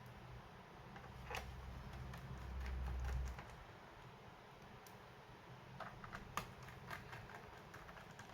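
Faint scattered plastic clicks and taps from handling a laptop, with a low rumble during the first three seconds and a run of quick clicks about six seconds in.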